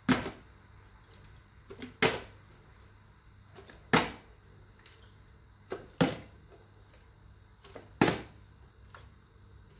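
Small plastic water bottle flipped and landing on a tiled floor, five times about two seconds apart, each landing a sharp smack with a brief rattle.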